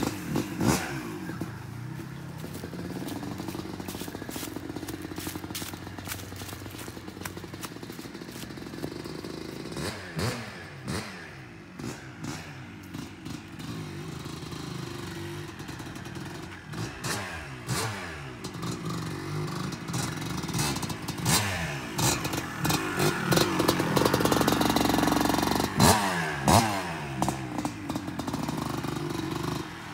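Thirty-year-old Kawasaki dirt bike's engine running as it is ridden, revving up and dropping off again and again between gear changes. It grows loudest about three-quarters of the way through as the bike comes near, with some clatter along the way.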